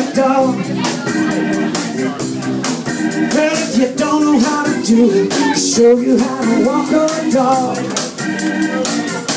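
Live funk and rhythm-and-blues band playing an instrumental passage with a steady beat: drum kit, bass, electric guitar and organ-toned keyboard.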